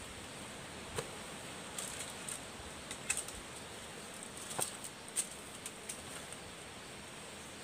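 Scattered light clicks and rustles of movement in leaves and brush, over a steady hiss.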